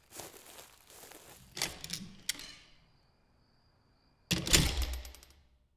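Sound-effect footsteps, then about four seconds in a door opens with a thud and a short clicking rattle.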